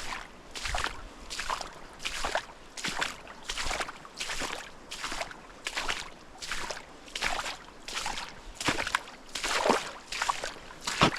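Footsteps of a hiker walking at a steady pace, about three steps every two seconds.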